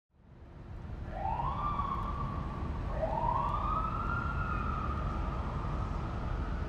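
Police siren wailing: two rising wails, the second held long and slowly falling, over a steady low rumble.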